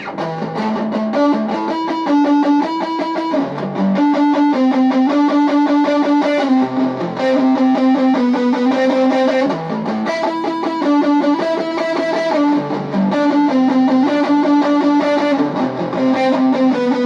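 Electric guitar played through a small custom Fender-branded practice amp with the gain turned fully up and the voicing switch on normal, giving a distorted tone; an unbroken riff of changing notes and chords.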